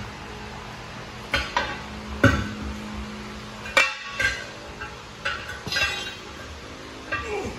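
Steel tire irons clanking and prying against a metal truck wheel rim while a large truck tire's bead is worked off it. The strikes come about seven times at uneven intervals, each ringing briefly.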